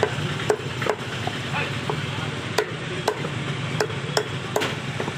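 Large butcher's knife chopping a country chicken into pieces on a wooden log block: sharp, irregular chops about two a second, over a steady low background hum.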